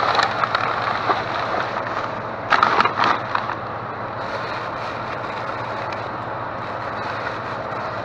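Trash and plastic bags rustling and crinkling as they are handled in a dumpster, loudest in bursts at the start and again about two and a half to three and a half seconds in, over a steady low background hum.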